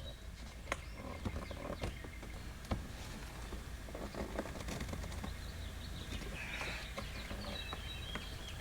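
Faint scattered clicks, taps and a brief scrape of a plastic door trim panel being pried at slowly, over a low steady hum.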